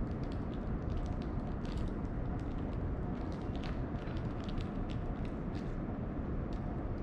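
Outdoor harbour ambience: a steady low rumble with faint scattered ticks and clicks.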